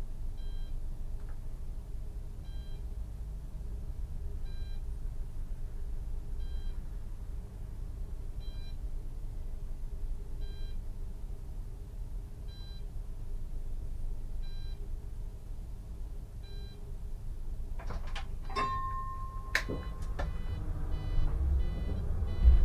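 Stationary Solaris Tramino S105p tram cab with a low steady hum and a short soft beep repeating about every two seconds. Near the end there are a few clicks and a brief held tone, then quicker beeping and a rising whine as the tram starts to pull away.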